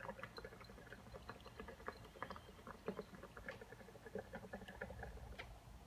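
Water bubbling in the Magic Flight UFO pint-glass water filter as vapor is drawn through it by the straw: a quiet, irregular run of many small pops and gurgles.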